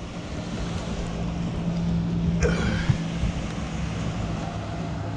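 Boat's outboard motor running steadily at low speed, a constant low hum, with wind on the microphone. A brief high-pitched squeak sounds about halfway through.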